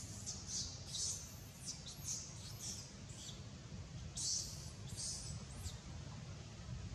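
A monkey's high-pitched squeaks, about a dozen short, irregular cries over a steady low background rumble, pausing briefly midway and dying out near the end.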